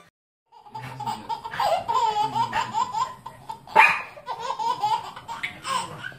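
Baby laughing in repeated giggling bursts, starting about half a second in, with a small dog giving one sharp bark a little after the middle.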